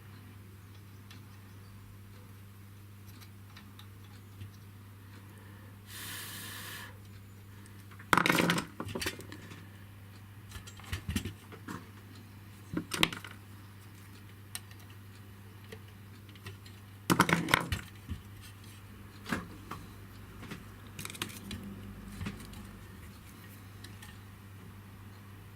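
Small metal tools and parts clinking and clattering while wires are fixed to a terminal, with two louder clatters about eight and seventeen seconds in and a short rasp about six seconds in, over a low steady hum.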